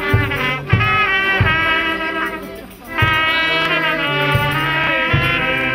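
Brass band playing a tune, trumpets carrying the melody over a moving bass line, with a brief drop in level partway through.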